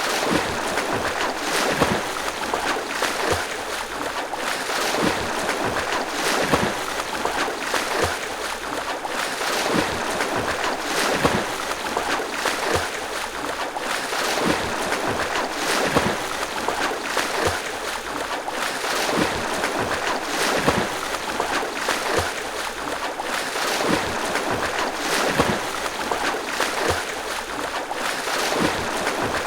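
A swimmer's arm strokes splashing and churning water in a steady rhythm, a sharp splash about every second and a half over a continuous wash of moving water.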